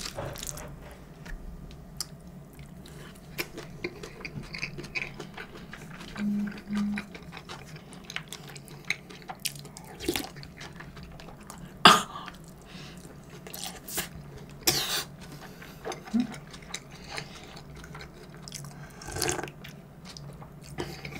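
Close-miked eating sounds: chewing and mouth sounds over spoonfuls of fried rice and jjamppong broth, with scattered sharp clicks of utensils against bowls, the loudest about 12 seconds in.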